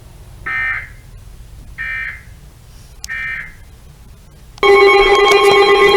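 Three short bursts of Emergency Alert System digital data about a second apart, the end-of-message code that closes a weather alert. About four and a half seconds in, a loud, steady EAS attention tone of several pitches starts.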